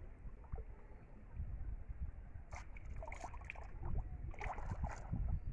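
Shallow pond water splashing and sloshing as a hand moves through it, in two short bouts of crackly splashes, over a low rumble.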